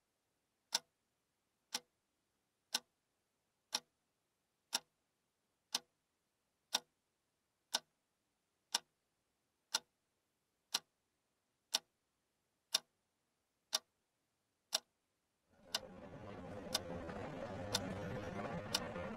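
A clock ticking steadily, one sharp tick a second. About three and a half seconds before the end, a low rumbling drone fades in under the ticks, and the ticks go on through it.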